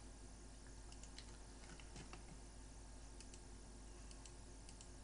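Faint, irregular clicking of a computer keyboard over a low steady hum.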